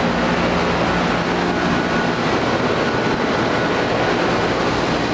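Several Trane XB13 and Trane Odyssey air conditioner and heat pump outdoor units running together: a steady, loud rush of condenser fans with a faint compressor hum.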